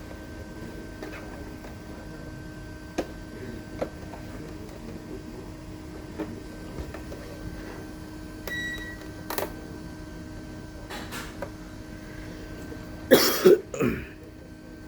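Scattered light clicks and taps over a steady electrical hum, with a brief beep partway through. Near the end come two or three short, loud, rough bursts close together.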